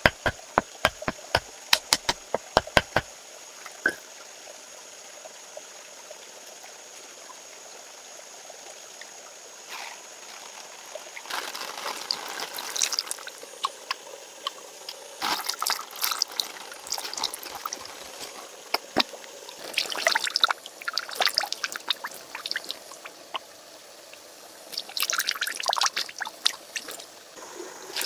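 Water pouring and trickling in irregular spells, after a quick run of sharp knocks, about four a second, that stops about three seconds in.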